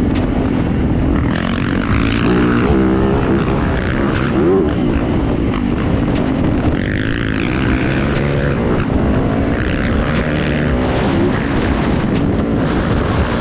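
Dirt bike engine running hard on a trail ride, heard from the rider's helmet camera, its revs rising and falling repeatedly as the throttle is worked, under heavy wind and road noise.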